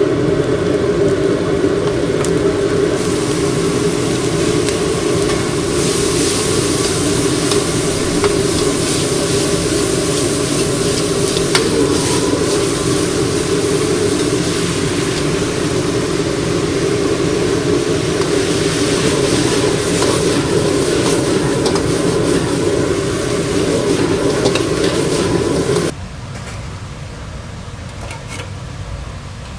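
Steady commercial-kitchen cooking noise: food sizzling and frying over a low steady hum. The sound drops suddenly to a quieter level a few seconds before the end.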